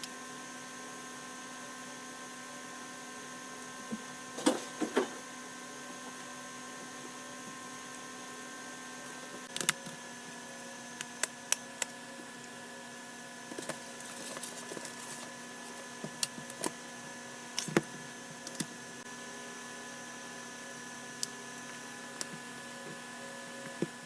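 Steady electrical hum with scattered sharp clicks and taps, a pair about four seconds in and more between about ten and eighteen seconds in.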